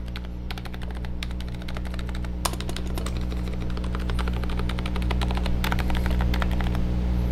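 Fast typing on an Akko M3W keyboard fitted with Kailh Islet silent switches: a quick, dense run of dampened key clicks, over a steady low hum.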